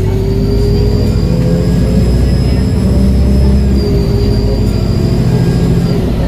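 Alexander Dennis Enviro400H hybrid double-decker bus under way, with a steady high-pitched turbo whistle over a low engine drone. A second, lower whine climbs in pitch for about three seconds and then drops back about four seconds in.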